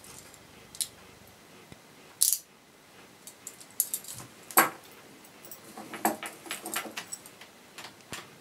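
Metal handcuffs being fastened around a person's wrists: scattered clicks and chain jangles, the sharpest about two and a half and four and a half seconds in, with a cluster of smaller rattles near the end.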